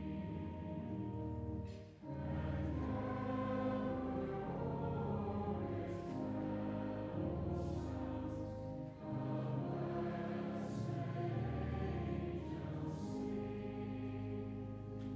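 A choir singing sustained chords, phrase by phrase, with short breaks about two and nine seconds in.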